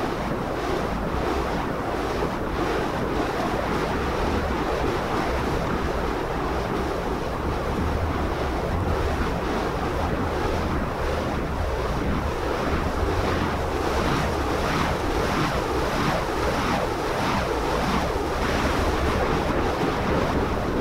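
Burning fire poi whooshing as they are swung in circles: a steady rushing noise with faint swishes recurring in a loose rhythm.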